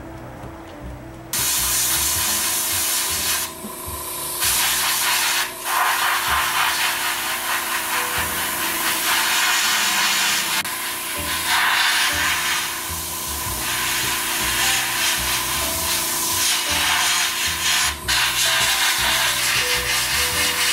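Paasche H siphon-feed airbrush spraying ink: a steady hiss of compressed air through the nozzle that starts suddenly about a second in, with a few short breaks as the trigger is let off.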